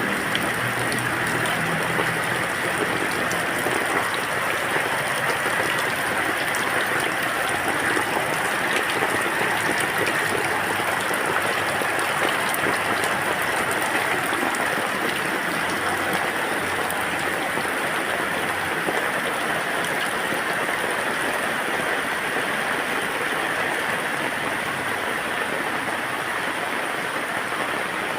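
Steady rain falling: an even hiss of water with faint ticks of individual drops.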